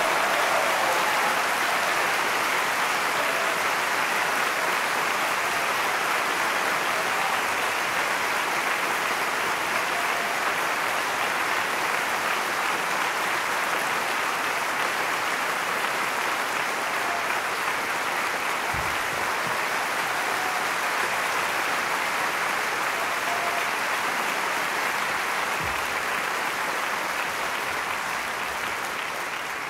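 Sustained applause from a large theatre audience, a dense steady clapping that eases slightly toward the end.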